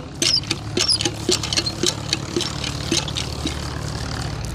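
Footsteps in strap sandals on a concrete path, a short slap at each step, coming a little slower near the end. Under them runs the steady low hum of an engine.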